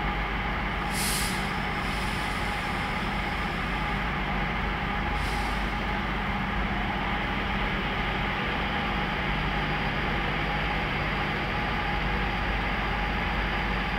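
Passenger trains standing at a station platform, giving off a steady machinery hum with a few steady tones. Two short hisses of compressed air, like brake air being released, come about a second in and about five seconds in.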